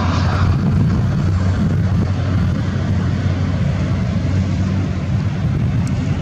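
Jet engines of a TAP Portugal Airbus A320-family airliner at takeoff power: a steady, loud, deep rumble with a hiss over it.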